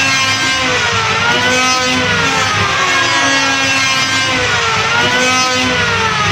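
Electric wood planer running loud, its motor whine sliding slowly down in pitch under load, then climbing quickly back up, twice.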